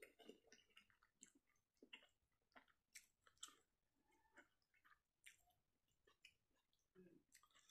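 Faint close-up chewing of rice and fish curry: irregular wet mouth clicks and small smacks, a few each second.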